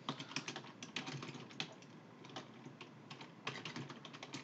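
Computer keyboard typing: quick runs of key clicks, sparser for about a second and a half in the middle, then a fast run again near the end.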